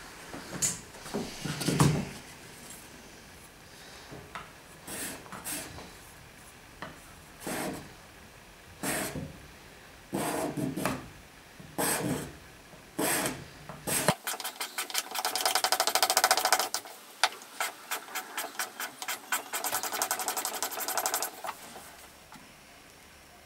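Sapele wooden body of a Japanese kanna plane rubbed on sandpaper laid flat, scraping. At first the strokes come singly, a second or more apart; about two-thirds of the way through they turn into a fast, even run of short strokes that stops shortly before the end.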